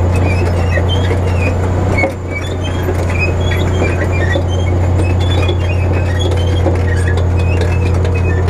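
Caterpillar D10 crawler dozer's V12 diesel running under heavy load with a steady low drone. Its steel tracks add scattered high squeaks and clicks, and soil crunches as the single ripper shank breaks through hardpan. The level dips briefly about two seconds in.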